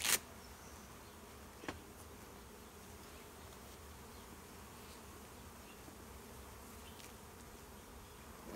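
Feral honeybees buzzing steadily around their exposed colony, with a sharp knock right at the start and a fainter click a couple of seconds in.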